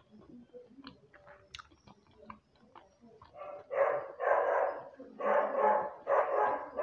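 A dog barking: a run of four drawn-out barks about a second apart, starting about halfway through. Before them, only soft chewing and mouth clicks.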